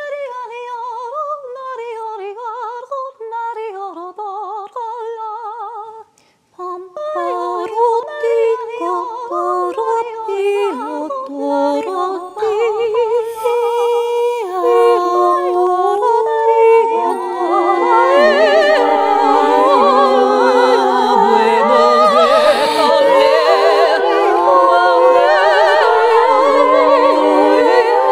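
Wordless a cappella singing and toning with vibrato: a single voice at first, then after a brief break about six seconds in, several layered voices in overlapping sustained notes that build and grow louder.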